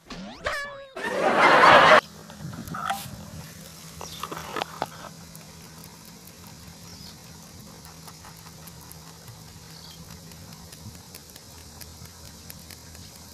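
An edited-in comedy meme sound clip: a pitched sound falling over the first second, then a loud, rough burst about a second long. After it only a quiet steady background with a faint low hum and a few small clicks.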